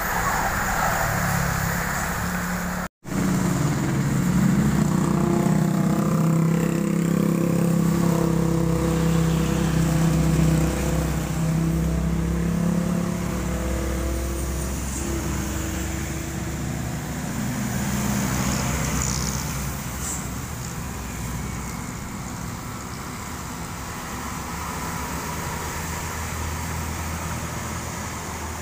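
Road traffic on a wet road: heavy trucks' diesel engines labouring past, loudest and most tonal in the first half, over a steady hiss of tyres on the wet surface. The sound cuts out completely for an instant about three seconds in.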